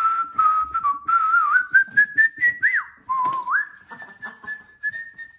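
A person whistling a tune, one wavering note line that slowly climbs, dips and restarts about three seconds in. Light clicks and knocks sound throughout.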